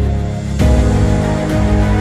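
Background music: sustained synth chords over a heavy bass, with a new chord struck about half a second in.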